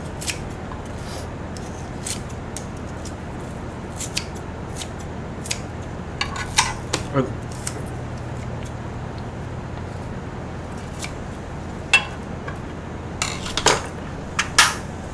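Kitchen scissors snipping an onion into pieces, with sharp cuts at uneven gaps and a quicker, louder run of snips near the end. Metal tongs clatter on the grill pan between cuts, over a steady low hum.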